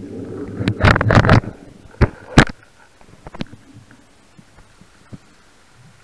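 Underwater handling noise from a speargun-mounted camera and the diver's gear: a loud scraping rush about a second in, then two sharp clicks close together, followed by a few faint ticks.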